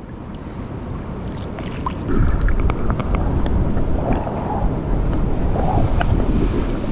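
Water sloshing and lapping around a camera held at the surface of a rock pool, growing into a louder low rumble about two seconds in as the camera dips partly underwater.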